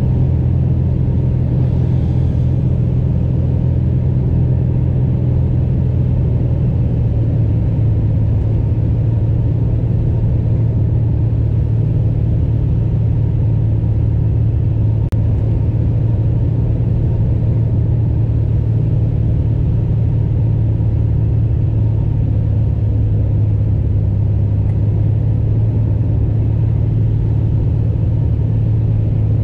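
Beechcraft Bonanza V35's six-cylinder piston engine and propeller droning steadily, heard from inside the cabin in flight.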